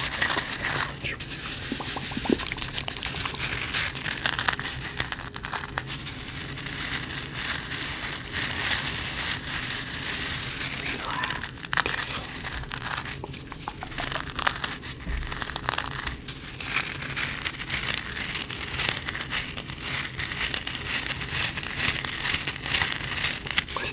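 A hacky sack being squeezed and kneaded by hand, its pellet filling crunching and crackling continuously with many small sharp crackles.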